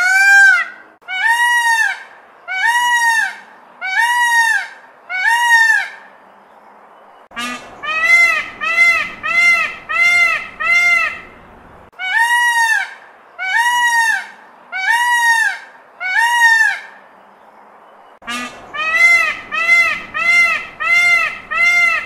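Indian peafowl (peacock) calling loudly, a run of honking wails about one a second, each call rising then falling in pitch. The calls come in four runs of five or six with short breaks between.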